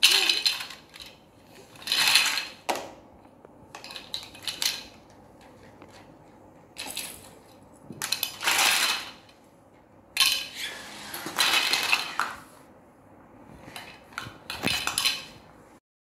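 Hard plastic toy building blocks clattering and knocking together in several short bursts as a toddler rummages through them and fits them together, with quieter gaps between.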